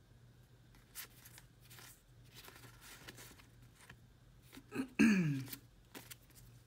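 Trading cards being slid and flipped through by hand, with faint card rustles and soft clicks. About five seconds in, a brief falling hum from a man's voice is the loudest sound.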